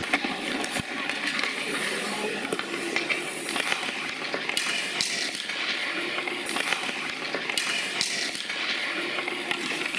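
Ice hockey skates scraping on rink ice, with sharp clacks of sticks striking pucks now and then.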